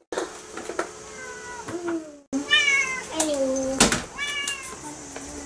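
Domestic cat meowing repeatedly: about six short meows, most falling in pitch.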